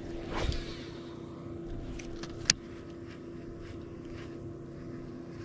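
Bow-mounted electric trolling motor running with a steady hum. A short whoosh comes about half a second in, and a single sharp click about two and a half seconds in.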